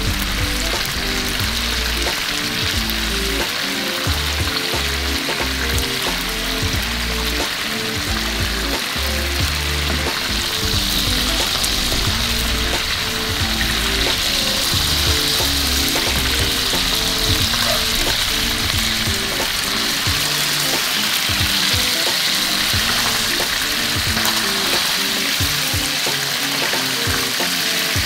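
Spotted mackerel fillets sizzling steadily in hot olive oil in a frying pan, the sizzle growing a little louder about ten seconds in.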